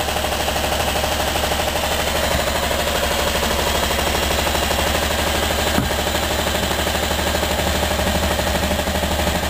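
Pressurized rhombic-drive Stirling engine running under electrical load at about 700 rpm, a steady rapid mechanical clatter with a low hum beneath it.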